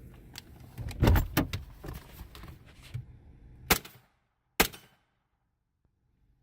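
Car door and body thumps and knocks as someone works in and out of a vehicle, then two sharp loud bangs a little under a second apart.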